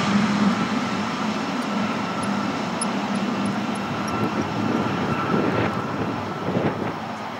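The jet engines of a twin-engine widebody freighter running steadily at taxi power: a continuous rushing engine noise with a held whine. A low drone under it fades about three seconds in.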